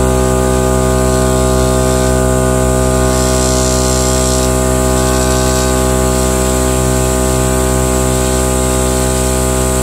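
Smittybilt 12-volt portable air compressor running steadily, pumping air through a coiled hose into a car tire: a loud, even motor-and-piston hum.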